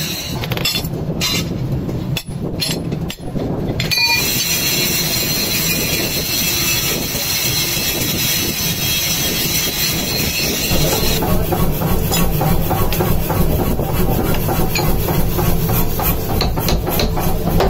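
Forge-shop metalwork on a leaf-spring cleaver blank: hand-hammer and chisel work on the anvil, then from about eleven seconds in a mechanical power hammer pounding the red-hot steel in a fast, even run of blows.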